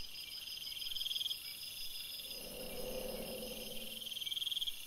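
Crickets chirring: a high, rapidly pulsing trill that swells up twice, with a soft low swell rising and fading in the middle.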